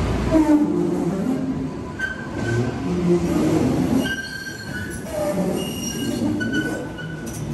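MBTA Green Line light-rail train moving through an underground station, its steel wheels squealing on the rails in high-pitched tones that come and go over a low rumble.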